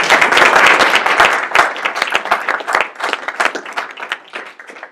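Audience applauding, strongest in the first second or two, then thinning out and dying away near the end.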